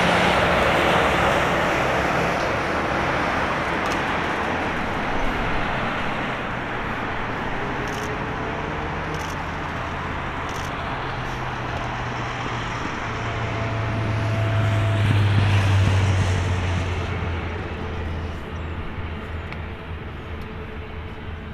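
Airbus A350-1000's Rolls-Royce Trent XWB jet engines running at low taxi power as the airliner rolls past, a steady rushing hum. It swells with a deeper hum about two-thirds of the way through, then fades.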